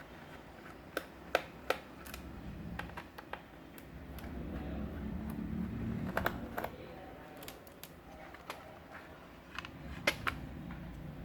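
Scattered small clicks and taps of a screwdriver and the laptop's case as its bottom cover is worked open, in clusters of two or three, over a low handling rumble that swells in the middle.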